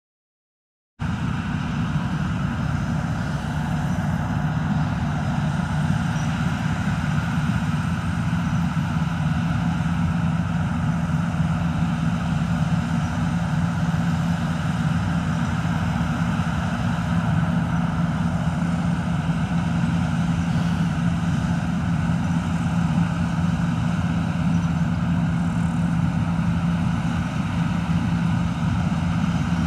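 Rostselmash Don-1500 combine harvester working a wheat field: its diesel engine and threshing machinery make a steady drone with a strong low hum. The drone starts suddenly about a second in, after silence.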